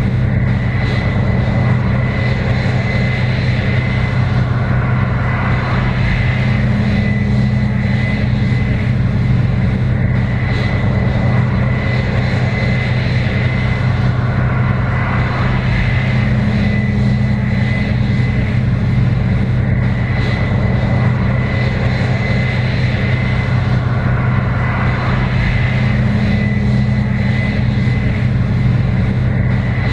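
Case IH 7120 Axial-Flow combine running steadily while harvesting corn: a loud, even engine drone with a constant high whine over it, swelling a little about every ten seconds.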